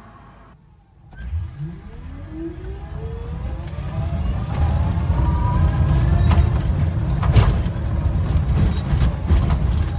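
Urban Triker electric trike's drive motor whining as it pulls away, the whine rising steadily in pitch for about four seconds and then levelling off, over a heavy low rumble with scattered clicks and a sharp knock about seven seconds in. The owner hears an abnormal noise from the trike and suspects something is wrong.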